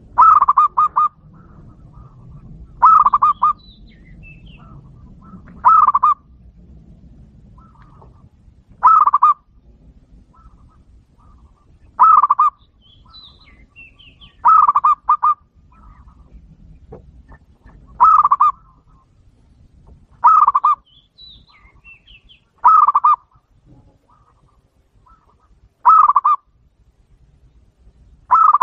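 Zebra dove (perkutut) singing its cooing song: a short burst of rapid staccato coos, repeated about every three seconds.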